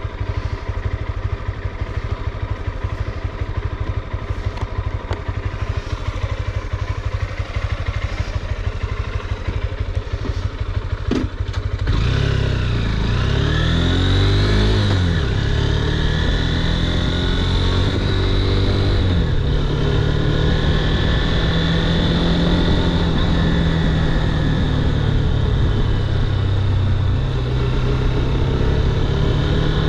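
Honda CB200X's single-cylinder engine running steadily with the bike standing, then, about twelve seconds in, louder as the motorcycle rides off, its pitch rising and dropping through gear changes before settling into a steady cruise with wind rush.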